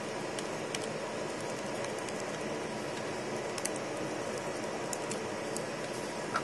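A few small, scattered clicks and ticks of a screwdriver working the tiny screws that hold a laptop's screen panel, over a steady background hiss.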